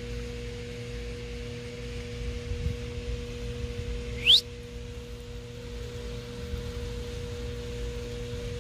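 A steady hum made of a few pure tones, over a low rumble, with one short whistle that rises quickly in pitch about four seconds in.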